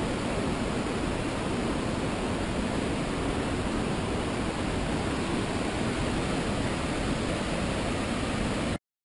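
Steady rushing roar of a heavy flood release pouring from the Revelstoke Dam's open flood gates down the concrete spillway. It cuts off suddenly near the end.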